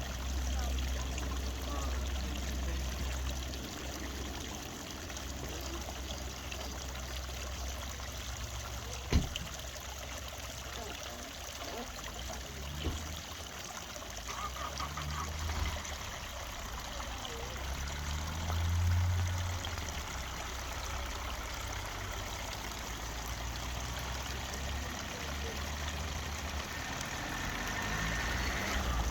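Water from a countryside fountain flowing and trickling steadily, with a low rumble underneath that swells briefly about two-thirds of the way through. A single sharp knock comes about nine seconds in.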